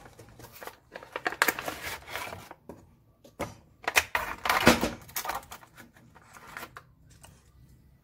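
Cardboard parts box being opened and a thin clear plastic packaging tray rustling and crinkling as two bullet turn-signal lights are handled and taken out, in irregular bursts, loudest about four to five seconds in.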